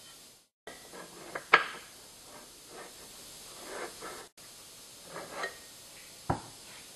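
Light handling sounds of a white sheet-metal TV wall-mount bracket: scattered rubs and small knocks, a sharp knock about a second and a half in, and another sharp knock near the end as the bracket is set down on the table.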